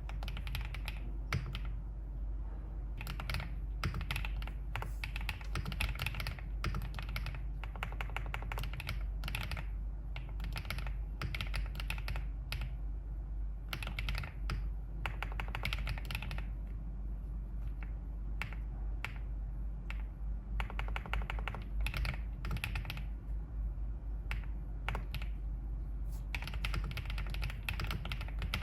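Typing on a Wave75 aluminium-case mechanical keyboard with green bamboo (青竹) switches: quick runs of keystrokes in bursts of a second or more, with short pauses between them, over a steady low hum.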